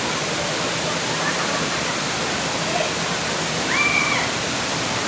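Waterfall rushing steadily, an even roar of falling water. A brief high-pitched call, likely a voice, is heard about four seconds in.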